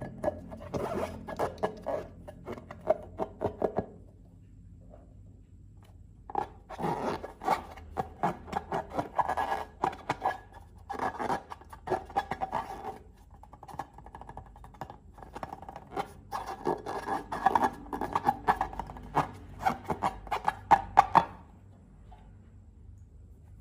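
Runs of crackling clicks and scraping from slime being handled and worked, with a pause about four seconds in and again near the end.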